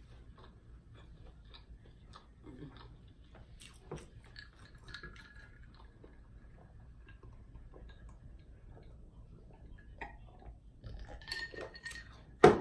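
Close-miked eating and food handling: faint chewing and small clicks and clinks of food, packaging and tableware. Near the end comes a single sharp knock, the loudest sound, like something being set down hard.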